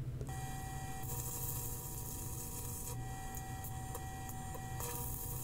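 Steady hiss of a gas torch flame heating a small steel slug, over a constant low hum; the hiss and its steady tones shift abruptly a few times.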